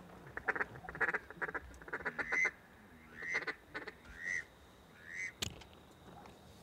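Duck calls: a quick run of quacking pulses, then three short arching whistled notes about a second apart, and a single sharp click after the last one.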